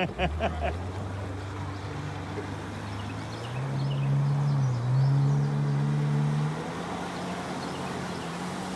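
Jet ski engine running, revving up about three and a half seconds in, dipping briefly, then easing back to a steady lower pitch a few seconds later.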